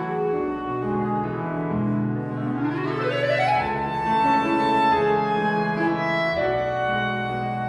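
Flute, clarinet and piano trio playing chamber music live, with a quick rising run about two and a half seconds in that leads into a held high note.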